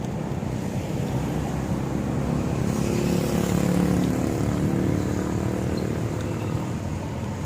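Street traffic rumbling steadily, with a motor vehicle's engine growing louder as it passes about three to four seconds in, then fading.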